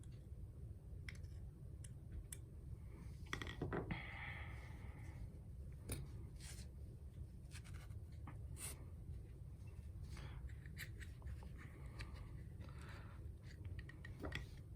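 Faint scattered clicks and short scrapes and rustles of a Zippo lighter's metal insert being handled as cotton wadding is packed into it.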